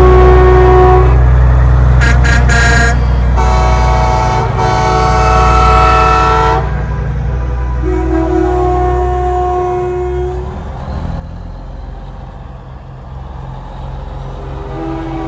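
Semi-truck air horns blowing as the trucks roll past: a blast at the start, a few quick short toots, then two longer blasts, with another starting near the end. Underneath is the heavy, low rumble of the diesel engines, which is loudest in the first half and fades as the trucks go by.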